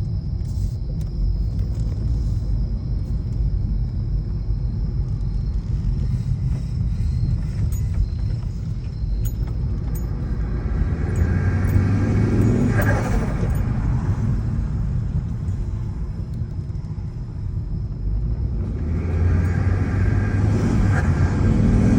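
Turbocharged Volvo S60 T5 engine running at low revs, then pulling up twice, about eleven and nineteen seconds in, with a rising pitch that falls away as the throttle closes; the lift-offs are where the turbo flutter comes in.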